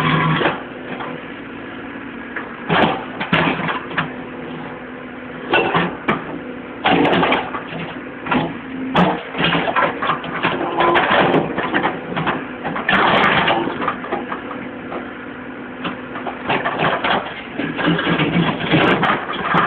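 Excavator engine running steadily while its bucket breaks down a brick wall, with repeated crunching and clattering crashes, about eight or nine in all, as bricks and masonry break and tumble.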